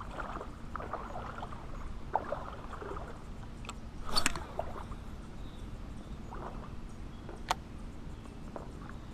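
Fishing rod being cast: a brief swish about four seconds in, amid faint water sounds, with a single sharp click near the end.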